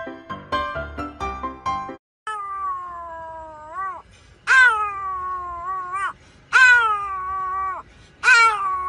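Short, plinking keyboard-like music, then a Pomeranian howling: four long drawn-out howls, each starting sharply and sliding down in pitch with a small rise at the end, the last starting near the end.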